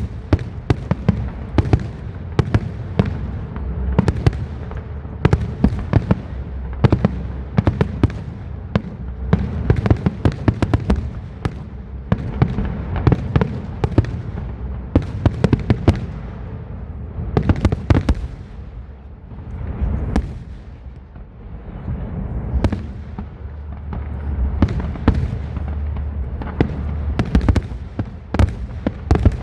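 Aerial fireworks display: a dense, continuous barrage of shell bursts and cracking reports over a low rumble, in clusters with a short lull about two-thirds of the way through.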